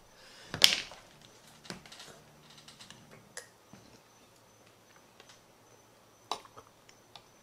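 A glass jar's screw lid coming off, with one short, sharp scrape about half a second in. Then a few faint clicks and knocks as the jar and a cup are handled on a plastic cutting board.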